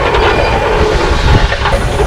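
1915 Case steam traction engine running while belted to a sawmill: a loud, continuous mechanical rumble.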